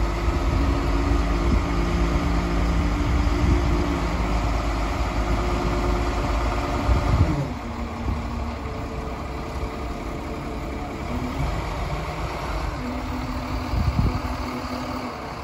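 Mobile crane's engine running at raised revs as it hoists a pickup truck on straps, then the revs drop away about seven seconds in and it settles to a quieter, lower steady run.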